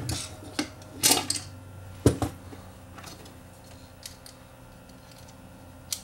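Clicks and knocks of a small plastic-and-metal cassette tape transport being handled and set down on the workbench. The loudest knock comes about two seconds in, with a sharp click near the end.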